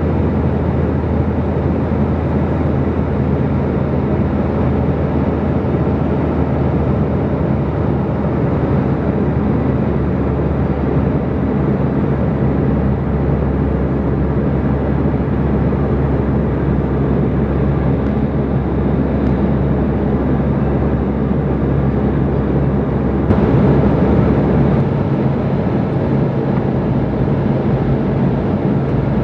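Steady in-cabin drone of an Embraer 190 jet airliner in cruise: the rush of airflow over the fuselage with the low hum of its GE CF34 turbofan engines, heard from a window seat beside the wing. The sound shifts slightly and turns a little brighter about three quarters of the way through.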